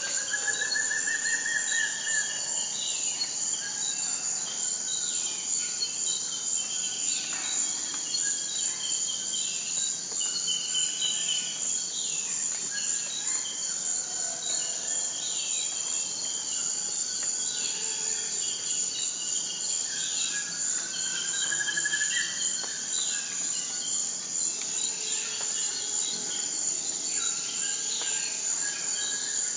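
Steady high-pitched insect chorus, with birds calling over it: short falling chirps every second or two, and a rising trill near the start and again about two-thirds through.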